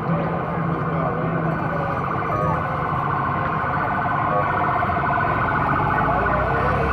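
Several vehicle sirens sounding at once, overlapping and warbling, with a steady wash of outdoor crowd and street noise beneath.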